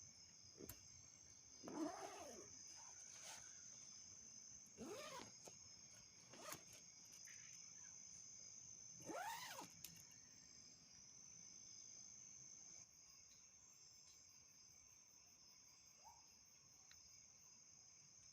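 Night insects, crickets among them, chirring steadily in a high band, with three faint calls that rise and fall in pitch, about two, five and nine seconds in.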